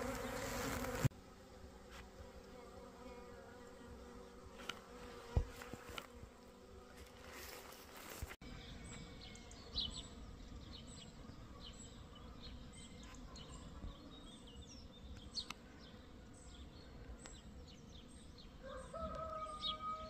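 A honeybee swarm buzzing, with the bees being hived into a wooden hive box. The hum is fairly strong for about the first second, then faint, with a few light clicks.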